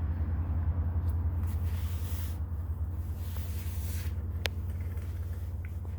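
A steady low, engine-like rumble, with one light click about four and a half seconds in.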